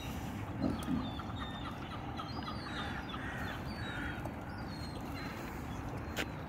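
Birds calling a few times in the middle, over a steady outdoor background noise, with two short low sounds a little under a second in.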